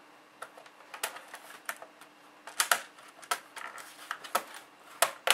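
Irregular plastic clicks and taps as an HP G50 laptop's hard drive access door is handled and fitted onto the case, with louder clicks about two and a half seconds in and again near the end.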